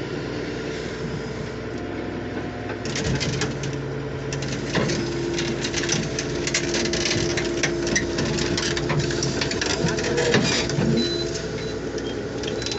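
Bulldozer engine running steadily. From about three seconds in, rapid metallic clanking and rattling joins it as the machine moves.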